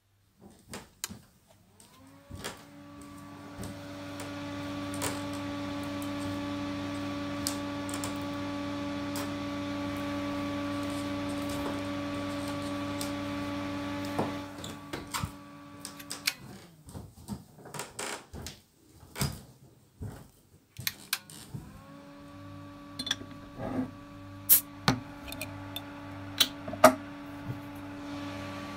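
A small electric appliance motor hums steadily. It winds up about two seconds in, stops after about fourteen seconds, and starts again a few seconds later. Scattered clicks and knocks sound around it.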